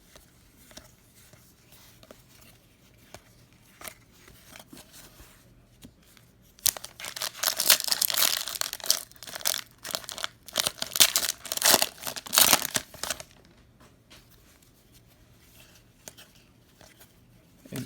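Plastic wrapper of a Panini Illusions fat pack of basketball cards being torn open and crinkled: a dense burst of tearing and crackling lasting about six seconds in the middle, with a few faint clicks of card handling before it.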